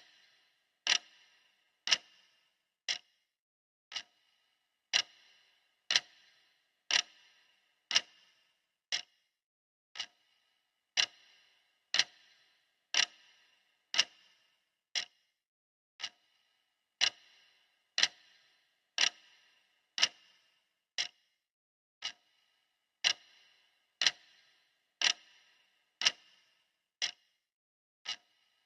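Clock ticking steadily at one tick per second, each tick a sharp click with a short ring after it.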